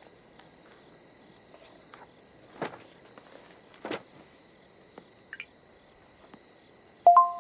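Crickets chirring steadily in a high, even chorus, with a few faint clicks. Near the end a sudden loud chime of two tones sounds together and rings on.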